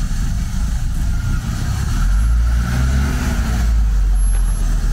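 Motor vehicle engine running close by as a deep, steady rumble, with a short rise and fall in pitch around the middle.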